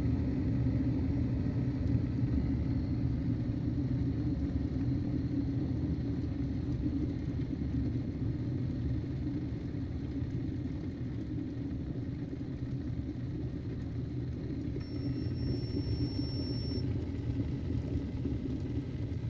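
Steady low mechanical rumble, like a running motor or vehicle. About fifteen seconds in, a thin high-pitched tone sounds over it for about two seconds.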